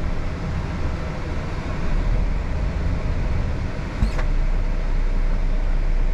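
Volvo FH 540 truck's 13-litre six-cylinder diesel running steadily, heard from inside the cab, with one short knock about four seconds in.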